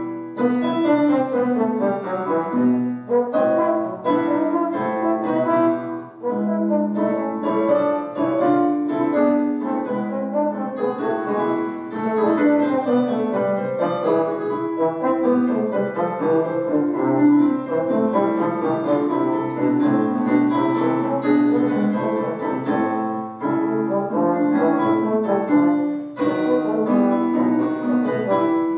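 Slide trombone playing a Baroque sonata movement with piano accompaniment, a continuous stream of melodic notes over the piano.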